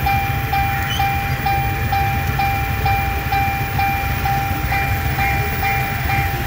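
Level-crossing warning signal sounding a short electronic tone about twice a second, steady and even throughout, over a steady low rumble.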